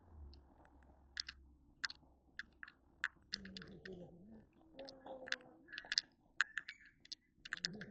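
Footsteps crunching on a dirt and gravel forest trail, a quick irregular series of sharp crunches and clicks.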